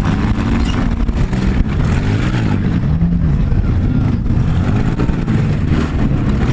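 Engines of several compact demolition-derby cars revving at once, their pitches rising and falling over one another.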